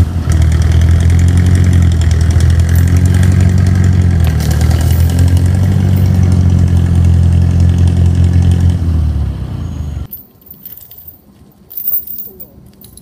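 Vehicle engine running loud and steady under load as it drags a honeysuckle bush out by the root with a chained brush grabber. It starts abruptly, fades after about nine seconds and stops about ten seconds in, followed by a few light clicks and rattles.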